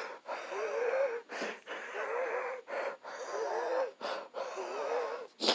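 A man wheezing through an asthma attack: laboured breaths about one a second, each with a high wavering whistle from his narrowed airways. A short sharp sound, louder than the breaths, comes near the end.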